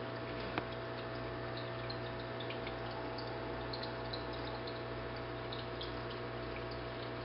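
Aquarium pump running: a steady low hum under continuous water trickling and bubbling, with small drip-like pops.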